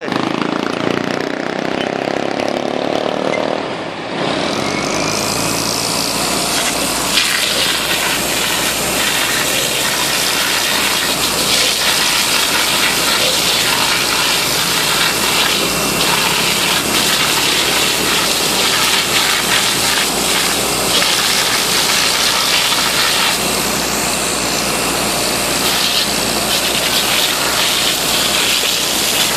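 High-pressure water jet hissing steadily as it washes insulator strings on a live power line, over the steady low running of the pump's engine; the spray starts about four seconds in. The washing is done because dust and bird droppings on the insulators cause corona discharge.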